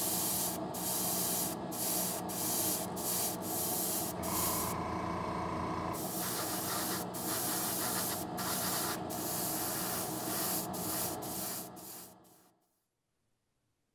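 Airbrush spraying paint: a loud steady hiss broken by brief pauses every second or so as the trigger is worked, with a steady low hum underneath. It cuts off near the end.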